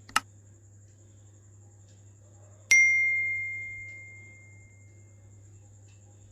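A sharp click, then a piece of metal struck once about three seconds in, ringing with a clear high tone that dies away over about two seconds.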